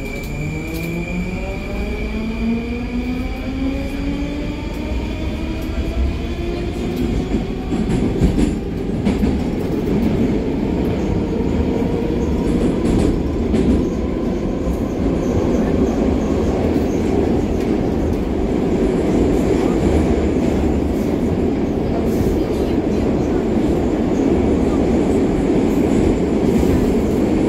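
Moscow metro train pulling away, heard from inside the car: the electric traction motors whine, rising in pitch over the first ten seconds or so as the train picks up speed. The wheel and tunnel running noise then builds into a steady, growing rumble.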